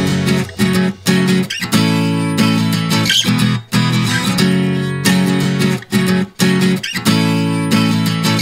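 Background music: a guitar-led instrumental with strummed acoustic guitar chords.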